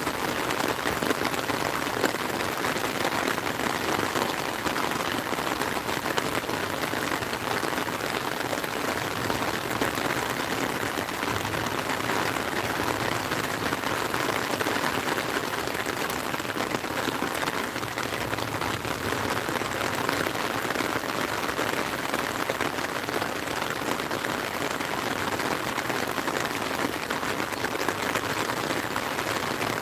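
Steady heavy rain falling on an open umbrella directly overhead and on the surface of a lake: a dense, even patter with no let-up.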